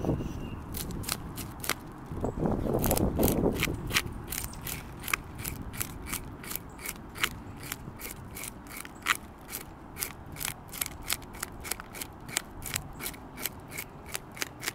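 A fork scraping the scales off a largemouth bass against the grain, in short, sharp strokes of about three a second. There is a louder, lower patch of handling noise about two to four seconds in.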